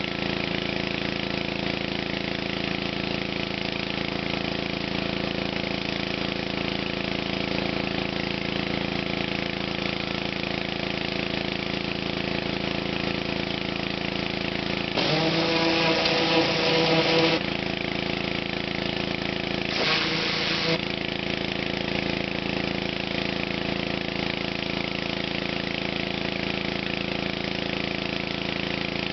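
Honda 11 hp single-cylinder pressure washer engine running steadily. About halfway through there are two louder spells, one of about two seconds and a shorter one soon after, with a hiss on top and a change in the engine note, as the spray gun is triggered and the engine takes the pump load.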